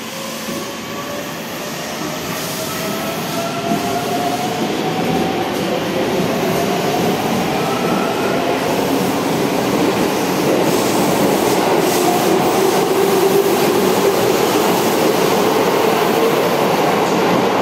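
Keikyu 1500 series (1700 subseries) electric train pulling away from an underground platform. The traction motor whine rises in pitch as it accelerates, under a growing rumble of wheels on rail that gets steadily louder as the cars pass.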